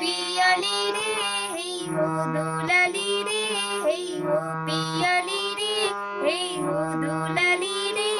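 A woman singing a Bengali song, accompanied by held notes and chords on a harmonium.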